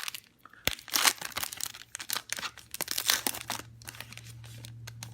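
A foil trading-card pack being torn open, its wrapper crackling and crinkling in quick, irregular bursts that stop about three and a half seconds in.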